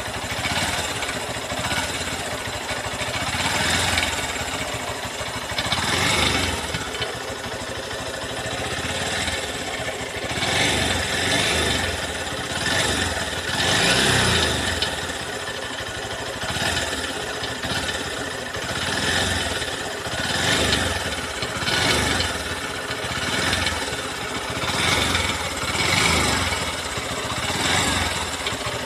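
New Honda CB200X's single-cylinder engine running, its sound swelling and easing every couple of seconds. The owner complains that the engine makes an abnormal sound.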